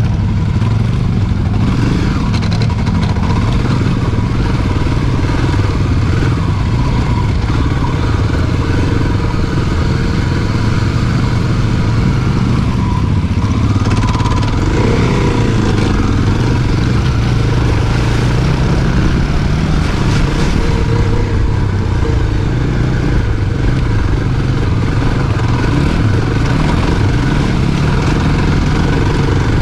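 Dirt bike engine running continuously while it is ridden over rough ground, its pitch rising and falling with the throttle.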